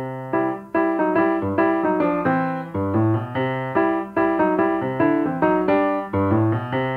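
Background music played on a piano-like keyboard: a tune of quick, evenly paced notes that starts abruptly at the very beginning.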